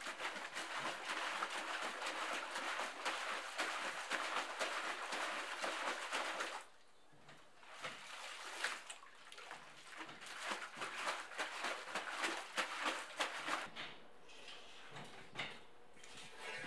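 Hanks of freshly dyed yarn being rinsed by hand in a metal basin of water to wash out excess dye and chemicals: dense, irregular splashing and sloshing that drops off sharply about seven seconds in, followed by quieter, scattered splashes and drips as the wet yarn is lifted from the basin.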